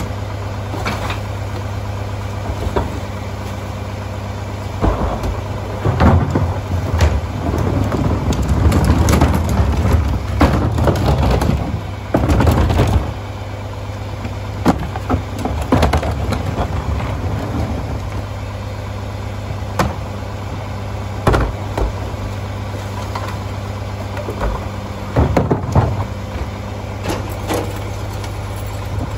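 Mack MR garbage truck's diesel engine idling steadily, while plastic wheeled trash carts are tipped and banged against the rear hopper of its Heil packer body. Bags and trash thud into the hopper, with a stretch of loud clatter in the first half and scattered knocks later.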